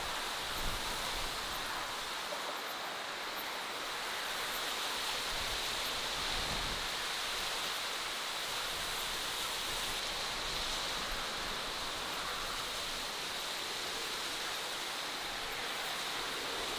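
Steady natural outdoor ambience: an even, unbroken rushing hiss with no distinct calls or impacts.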